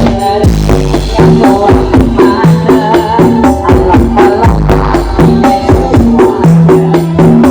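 Loud dance music with heavy bass and a steady fast percussion beat, blasting from a carnival sound-system rig (sound horeg).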